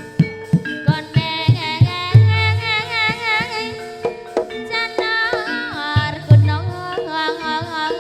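Live Javanese jathilan dance accompaniment: deep kendang-style drum strokes and steady ringing gamelan tones under a high, wavering melody line.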